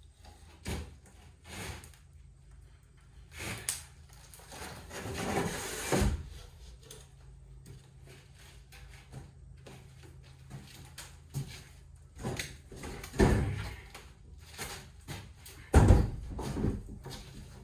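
Scattered knocks, clunks and scraping of parts being handled during teardown work, with a longer scrape ending in a heavy thud near the middle and two more loud clunks near the end.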